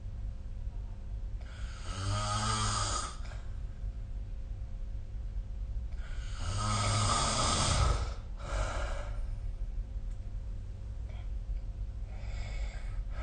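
A sleeping person snoring: four snores a few seconds apart, the longest and loudest about six seconds in, followed at once by a short one.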